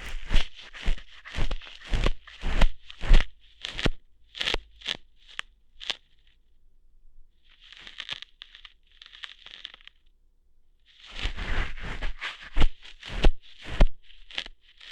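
ASMR ear-hair plucking sounds, close to the microphone: a run of sharp crackling, tearing pops about two a second. They stop for a few seconds in the middle, with a couple of soft rustles, then start again.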